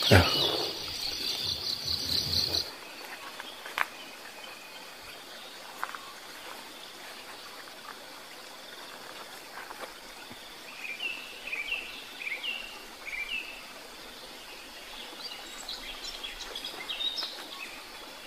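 A single sharp crack at the very start, the shot from the hunter's scoped rifle, over a dense high trill of insects that stops abruptly a couple of seconds in. Then quiet countryside background, with a bird calling a quick series of about five short chirps in the middle and more scattered chirps near the end.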